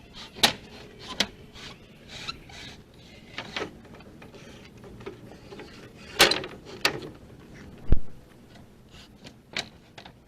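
Lumber being handled and stacked: a series of wooden knocks and short scrapes as boards are moved, with a heavy, deep thump about eight seconds in.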